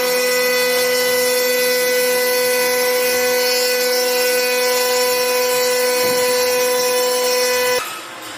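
CNC router spindle running at high speed while carving wood: a steady, high-pitched whine with the noise of the bit cutting, which cuts off suddenly near the end.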